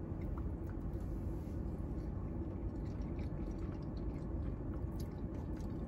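Faint chewing and a few small clicks of a plastic spoon against a takeout container, over the steady low hum of a car cabin.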